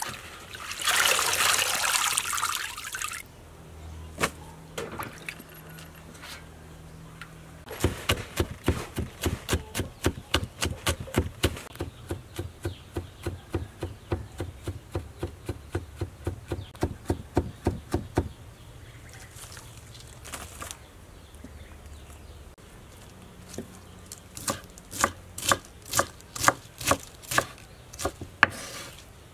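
Water splashing and pouring in a basin as water spinach is washed by hand. Then a cleaver chopping on a wooden cutting board in a fast, steady run of about four strokes a second for some ten seconds, and near the end a slower run of chops through green onion stalks.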